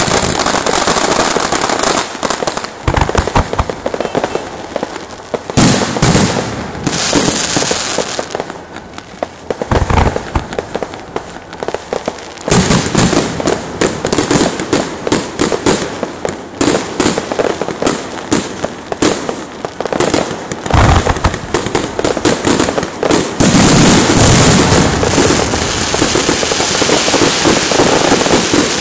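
Electronically fired fireworks and firecrackers going off loudly in dense, rapid strings of cracks and bangs, with heavier booming bursts every few seconds.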